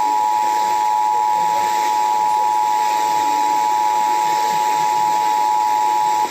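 Emergency Alert System attention signal: a loud, steady two-tone alarm (853 and 960 Hz sounded together) over a faint hiss, cutting off at the very end. It announces an emergency alert message.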